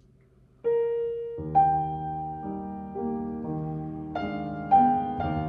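Piano music. After a brief silence, a single note sounds about half a second in, then chords and a moving melody follow, the notes changing about twice a second.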